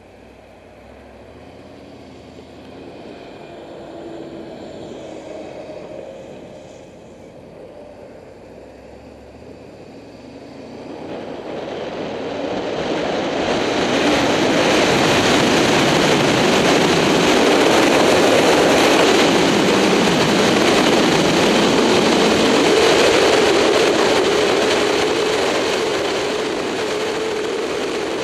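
Motorcycle engine revving up and shifting through the gears as it pulls away. About eleven seconds in, loud wind noise on the bike-mounted microphone swells up and holds as the bike cruises at speed, with the engine's steady note underneath.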